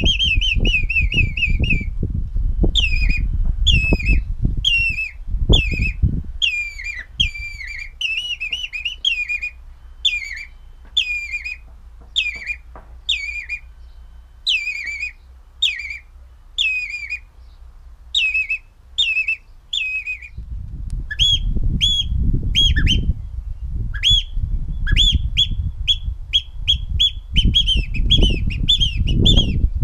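Finger whistling imitating shorebird calls: first a common greenshank, then a common redshank, as a run of falling whistled notes repeated about every half second. From about 20 seconds in it changes to quick, sharp, piping notes imitating a Eurasian oystercatcher.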